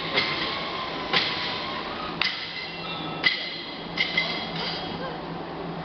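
Candy pulling machine running with a steady low hum, punctuated by sharp metallic knocks that ring briefly, about one a second, with two close together about four seconds in.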